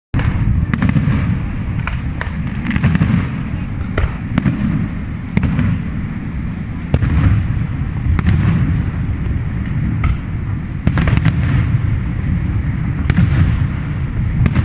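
Fireworks display: many sharp bangs and crackling reports, irregular and close together, over a continuous low rumble.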